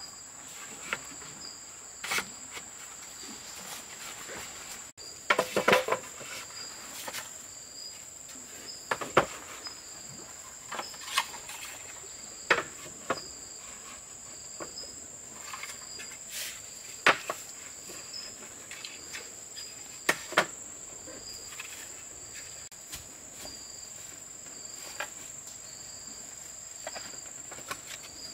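Insects trilling: a steady high drone with a short chirp repeating about once a second. Scattered sharp knocks and clicks from camp work sound every few seconds, with a louder cluster about five seconds in.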